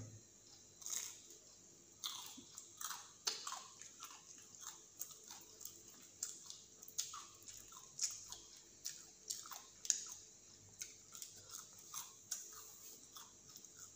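A person chewing a crunchy fried chicken snack with the mouth close to the microphone: a run of soft crunches, about two a second.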